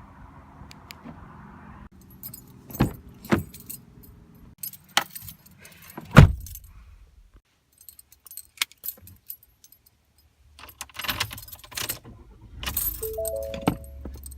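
Keys jangling among a string of sharp clicks and knocks, the loudest about six seconds in, with a few short beeping tones near the end.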